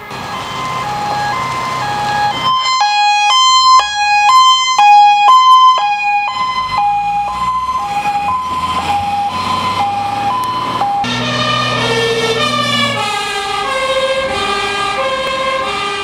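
Fire engines' two-tone sirens alternating high and low notes, over truck engine noise as a fire truck passes close by; the siren is loudest a few seconds in. A second two-tone siren at different pitches joins about eleven seconds in.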